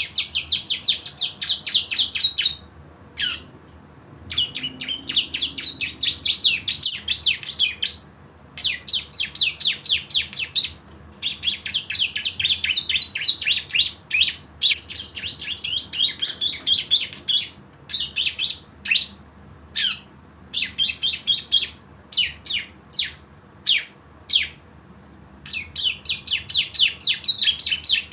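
Ciblek (prinia) singing its rapid machine-gun 'bren' trill: fast, high chattering bursts a few seconds long, separated by short pauses, with scattered single sharp notes between bursts.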